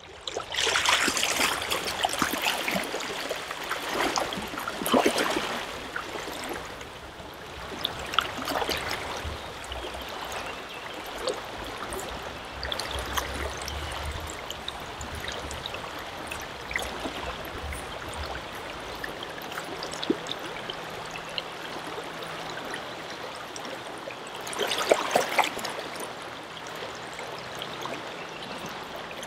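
Shallow river running over a riffle, a steady rushing of water, with louder sloshing swells several times as waders move through the current.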